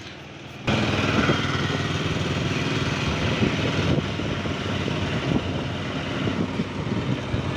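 A vehicle engine running, with wind rushing over the microphone while riding along a road. It starts abruptly about a second in and holds steady.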